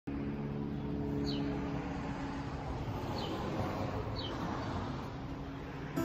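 Road traffic going by, a steady rumble and hiss of passing vehicles, with a bird's short falling chirp heard three times.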